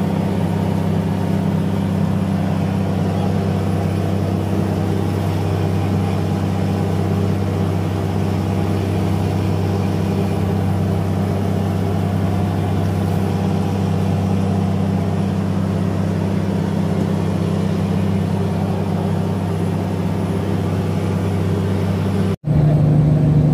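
Fishing trawler's inboard diesel engine running steadily with a low, even drone. Near the end it cuts out for an instant and comes back at a slightly different pitch.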